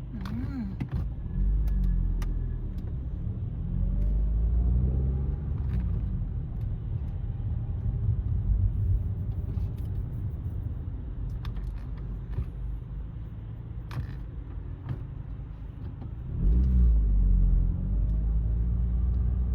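Car engine and road rumble while driving, the engine note rising and falling as it speeds up and eases off, loudest about sixteen seconds in.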